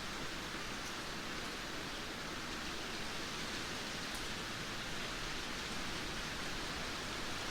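Heavy rain pouring down in a steady, dense hiss, with no thunder or gusts standing out.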